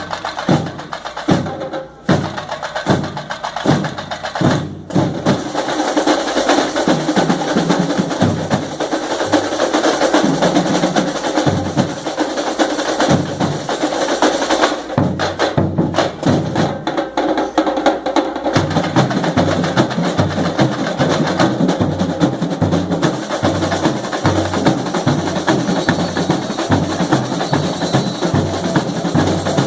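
Samba school bateria playing: a full percussion section of drums and small percussion in a dense samba rhythm. Heavy low drum strokes open with two brief breaks in the first five seconds, and a steady low drum pulse drives the second half.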